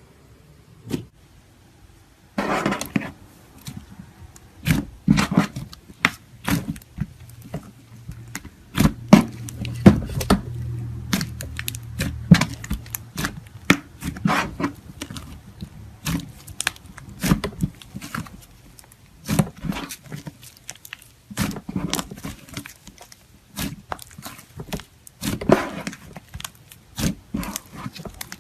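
Slime being worked by hand, giving irregular sharp pops and clicks, a few a second, as it is squeezed and stretched.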